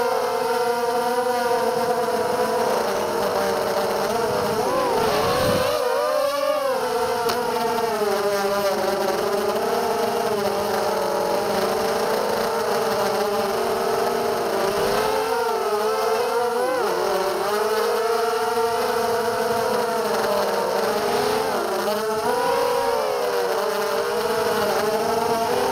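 Brushless motors and 5-inch propellers of a 250-size FPV racing quadcopter (DYS BE1806 2300KV motors, HQ 5040 props) whining steadily, heard from its onboard camera. The pitch wavers up and down all the time with throttle, with sharper swoops about five and seventeen seconds in.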